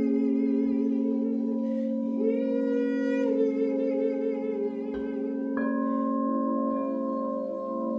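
Crystal singing bowls ringing with steady, sustained low tones while a woman sings wordless, wavering vocal tones over them, her pitch gliding upward a little over two seconds in. About five and a half seconds in, a mallet strike brings in a new, higher bowl tone.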